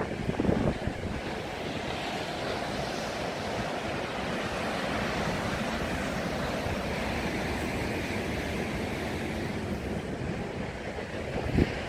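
Ocean surf breaking and washing up a beach, a steady rush that swells through the middle, with wind buffeting the microphone in low thumps near the start and near the end.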